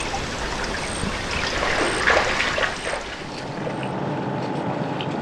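Shallow creek water trickling and running, with a louder surge of water about two seconds in; after about three seconds it settles into a softer, steadier flow.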